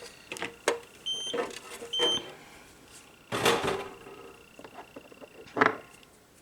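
Two short electronic beeps from a UV/LED nail lamp, each a high single tone with overtones, about a second apart. Around them are small handling clicks and knocks, and a louder rustle about three and a half seconds in.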